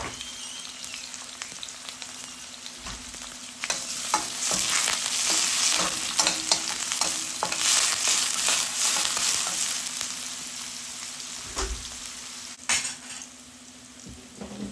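Food frying in a hot pan and being stirred, with short knocks and scrapes against the pan. The sizzle grows louder about four seconds in and drops off sharply near the end.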